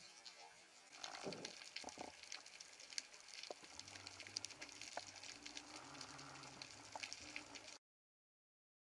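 Faint underwater crackling picked up through a camera housing: a dense, sizzling patter of tiny clicks with a brief swish about a second in. A low hum joins about halfway, and the sound cuts off abruptly near the end.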